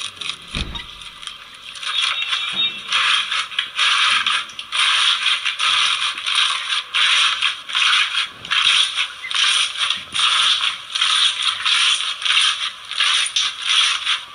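Slime being squeezed and pressed, giving a dense run of fast crackling and popping clicks, with one brief low thump shortly after the start.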